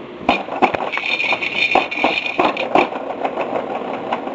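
Plastic baby activity-seat toys knocking and rattling in irregular bursts under a baby's hands, over a steady mechanical whir.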